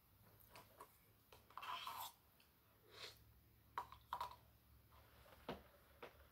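Near silence, broken by a few faint clicks and short soft scrapes of a plastic spoon in a small paper cup as someone eats from it.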